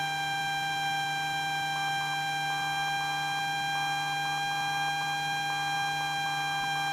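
Cessna Skyhawk intercom line with no talk: a steady electrical whine at one pitch over a low hum. From about two seconds in, faint short and long beeps sound in a keyed pattern.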